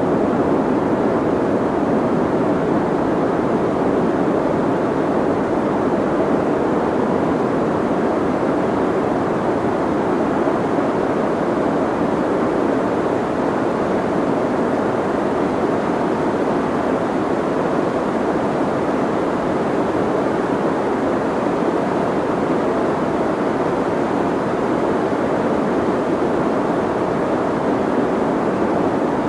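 Soft white noise: a steady, even rushing hiss with the highs rolled off, so most of it sits low and in the middle. It never changes.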